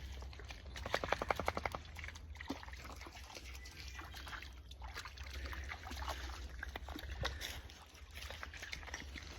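Shallow creek water trickling and splashing as a dog moves about in it, with a quick run of about a dozen rapid pulses about a second in.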